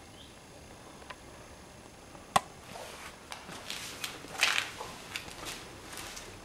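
A single sharp knock about two seconds in, then irregular footsteps crunching over scattered debris and rubble.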